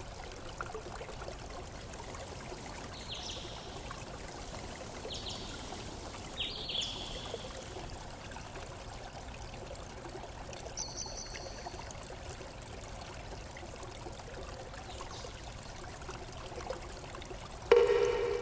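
Water trickling and flowing steadily, with a few short high chirps. Near the end a louder, pitched sound briefly cuts in.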